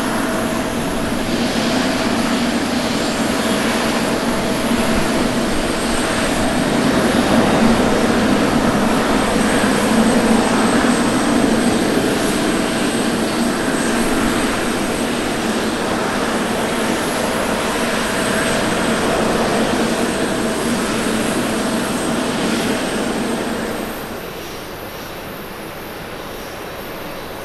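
Twin jet engines of a Boeing 767 at takeoff thrust, a loud steady rumble through the takeoff roll and climb-out. About 24 s in, the sound drops to a quieter steady jet-engine noise from a Boeing 737-800 on the runway.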